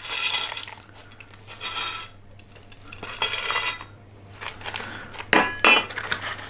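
Metal scoop scooping and pouring small pebbles onto the top of a plant pot in a few short rattling pours, then a sharper metallic clatter about five seconds in as the scoop is set down on a metal table.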